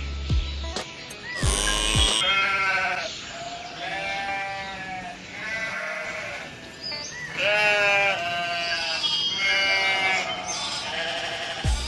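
Sheep bleating, about six quavering calls one after another, over background music with a drum beat.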